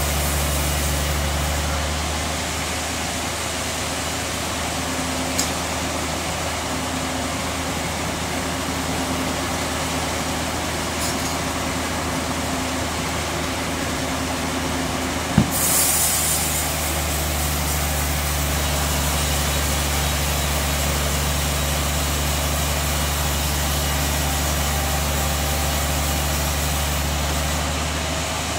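Band sawmill machinery running with a steady low hum between cuts; the hum eases off for a while and comes back strong. About halfway through there is one sharp knock followed by a brief hiss.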